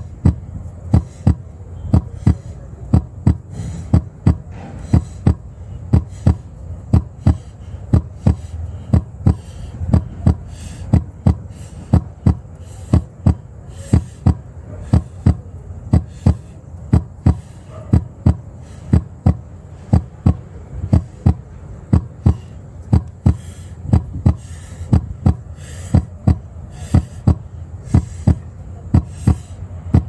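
Heartbeat sound: a steady run of low thumps, about two a second, over a low hum.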